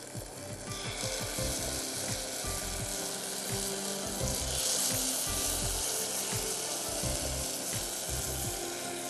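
Tomato ketchup sizzling as it hits hot oil and sautéed onions and garlic in a saucepan over a gas flame. The sizzle builds about a second in and then holds steady. Quiet background music runs underneath.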